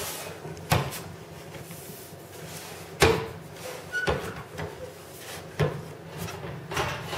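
Aluminum wing rib and a wooden flange-bending tool knocking against a wooden workbench as the rib is positioned in the tool. A handful of sharp knocks come a second or two apart, the loudest about three seconds in.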